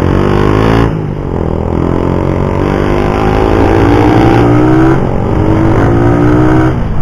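Suzuki Raider 150's single-cylinder engine accelerating up through the gears: the revs climb, drop at a shift about a second in, climb again, drop at another shift about five seconds in, then climb once more and fall near the end. The engine is new and still being broken in.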